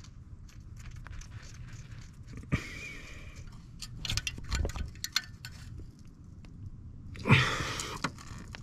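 Hands working at a spark plug wire boot on an engine, tugging at it, with scattered small clicks and metallic clinks and a louder brief rustle about seven seconds in.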